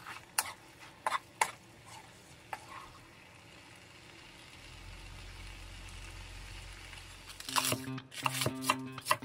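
Spicy fish cake stir-fry sizzling in a frying pan, with wooden spatulas knocking and scraping as it is tossed. About seven and a half seconds in, a chef's knife starts chopping cabbage on a wooden board in quick regular strokes, over light music.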